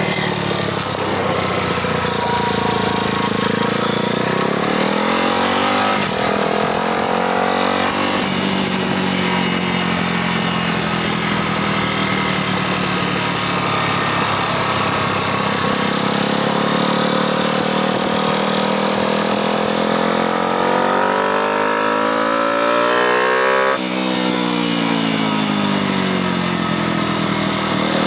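Sport motorcycle engine running under load at speed, its revs climbing and falling, with sudden drops in pitch at gear changes a few seconds in and about three-quarters of the way through. Steady wind rush underneath.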